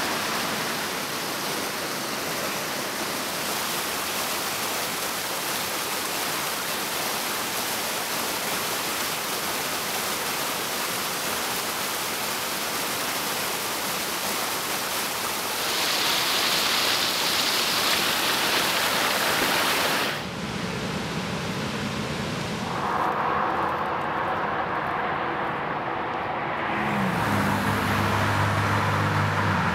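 Steady rush of water from a rocky stream with small cascades. About two-thirds of the way in it gives way to road noise, and near the end a car engine passes.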